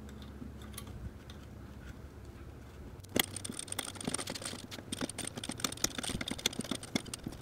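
Ratcheting hand driver clicking rapidly from about three seconds in, as a small Loctited bolt is run in hand tight on the stator wire bracket in an ATV crankcase cover. Before that, a few light clicks of the bolt and the tool being handled.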